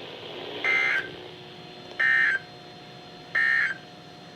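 Three short bursts of Emergency Alert System SAME data tones, a harsh digital warble about a second and a third apart: the end-of-message signal that closes an EAS broadcast.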